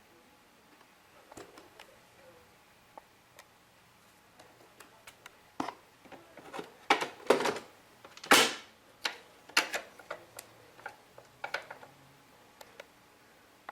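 Plastic parts of a Dirt Devil Power Stick vacuum being handled, with irregular clicks and knocks, busiest in the middle and loudest about eight seconds in. The vacuum motor is not running.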